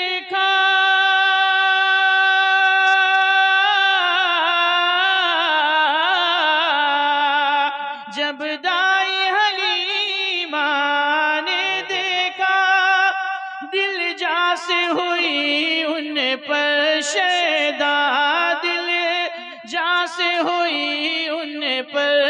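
A man's voice singing a naat unaccompanied through a PA microphone. He holds one long note for about four seconds, then draws out a wavering, ornamented melody line with short breaths between phrases, without clear words.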